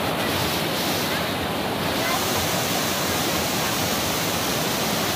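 Steady rush of whitewater rapids: a fast mountain river churning over boulders.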